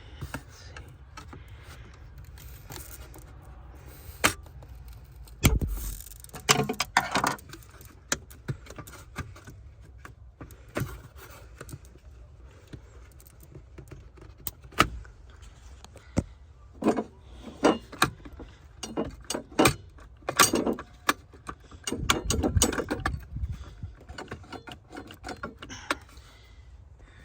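Hand tools and loose metal and plastic parts clinking, clicking and knocking as a bracket in the battery compartment is worked loose. Irregular sharp clicks throughout, with a heavier thump about five and a half seconds in and a stretch of rattling handling near the end.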